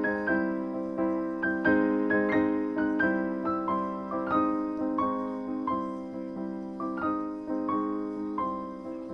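Background piano music: a slow melody of single ringing notes over held lower notes.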